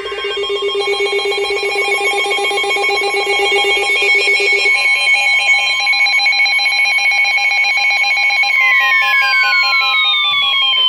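Emergency Alert System electronic alert tone: several steady tones sounding together with a fast warble. The lowest tone drops out about halfway through, and over the last couple of seconds the tones slide downward in pitch.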